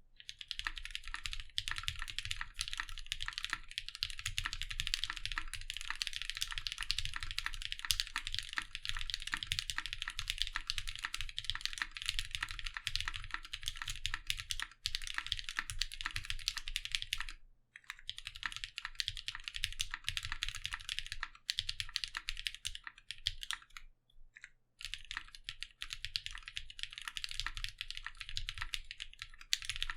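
Continuous typing on a Mekanisk Klippe S mechanical keyboard with lubed 62g NovelKeys Cream linear switches, a polycarbonate plate and CRP Tulip keycaps, gasket-mounted on a gummy-worm o-ring: a steady, fast stream of key strikes, with brief pauses about 17 and 24 seconds in.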